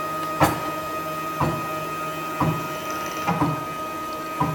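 Desktop four-axis CNC router's stepper motors driving the axes back toward the machine's home position: a steady whine and hum, with a short click about once a second.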